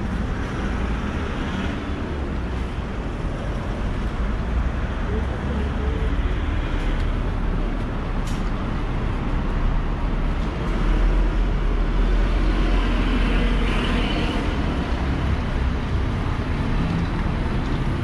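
Busy street traffic: road vehicles running past with a steady low rumble, swelling about halfway through as a larger vehicle passes close.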